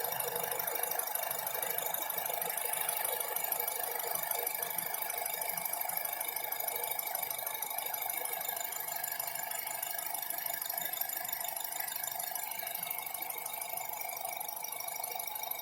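Honda CR-V engine running warm, with a steady busy mechanical ticking and rattling. This is the abnormal engine noise the owner is recording: a 'g..g..g' sound that comes and goes once the engine has warmed up.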